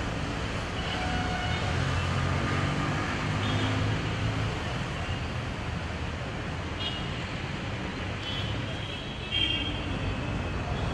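Steady background noise with a low hum, and a few brief high tones scattered through it.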